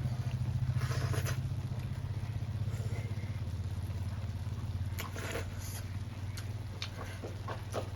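A steady low motor or engine hum that comes on just before and holds level, with a few light clicks in the second half.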